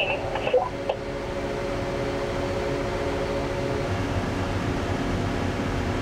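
Tractor engine running steadily, heard from inside its cab: an even hum with a few held tones over a low rumble.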